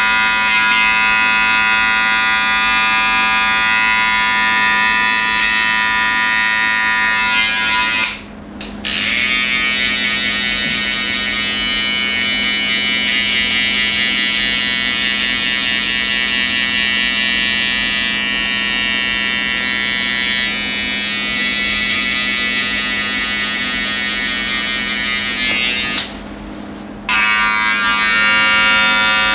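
Cordless electric hair clippers and a detail trimmer running steadily with a buzzing whine while cutting hair close to the scalp. The sound drops out briefly twice, about a third of the way in and near the end, as one tool is switched off and another started, each with its own pitch.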